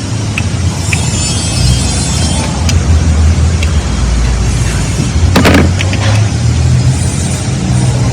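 Car engine running with a loud, uneven low rumble, and a brief burst of noise about five and a half seconds in.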